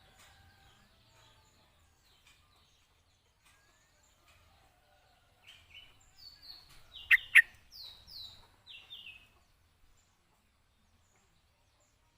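Yellow-vented bulbul singing a short burst of quick falling chirps, from about five and a half seconds in to about nine seconds, with two sharp loud clicks in the middle of it; fainter chirps come before.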